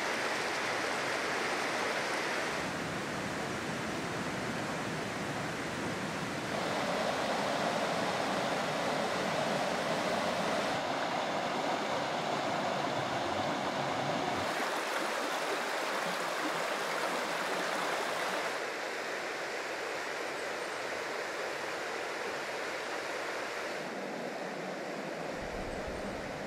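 Rushing water of a small rocky stream running over riffles and cascades: a steady rush that changes in level and tone several times.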